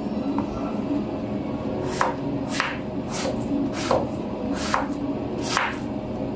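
Kitchen knife chopping apple into chunks on a bamboo cutting board: about six sharp knocks of the blade on the wood, roughly one every second, starting about two seconds in.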